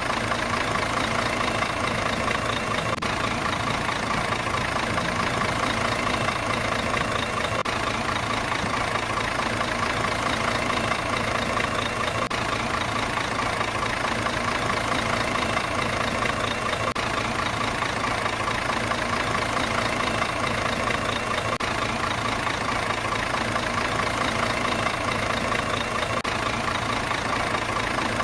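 Truck engine idling steadily, with no revving or breaks.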